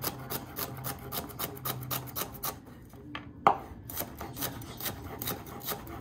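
Cleaver chopping celery on a wooden cutting board: quick, even knocks of the blade on the board, about four or five a second. A short pause a little before halfway is followed by one louder chop.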